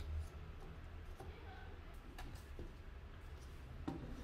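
Light wooden clicks and taps as a thin wooden lattice panel in its frame is handled and shifted on a workbench, over a low steady hum. The sharpest knock comes near the end.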